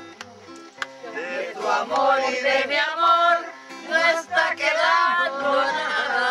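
Acoustic guitar accompanying several people singing together; the voices come in about a second in and are louder than the guitar.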